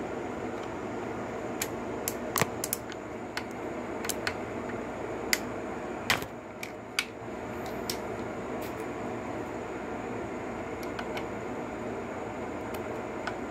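Scattered sharp metal clicks and taps of a socket and ratchet working the valve adjuster locknut in a Suzuki DR-Z125's cylinder head, most of them in the first half. A steady background hum runs underneath.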